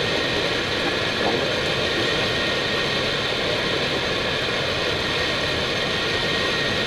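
Steady rush of airflow and engine noise in an Airbus A319 cockpit on final approach, with a few faint steady tones running through it.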